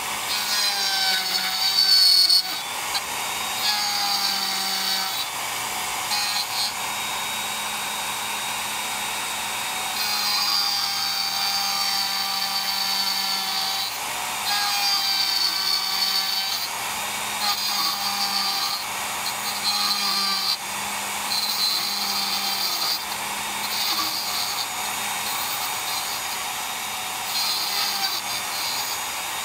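Router spinning an end mill, run across the deck face of an aluminum cylinder head to mill the welded filler down to just above the gasket surface. A steady motor whine that grows louder in stretches of a few seconds as the cutter bites.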